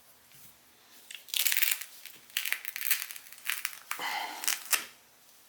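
Crinkling and rustling of material being handled and moved on a work table, in several noisy bursts from about a second in until near the end.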